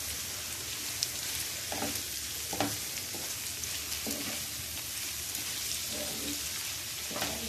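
Diced potatoes, onion and tomato sizzling in hot oil in a non-stick frying pan, cooking until the tomatoes soften. A wooden spatula stirs and scrapes across the pan several times, in short strokes about a second apart.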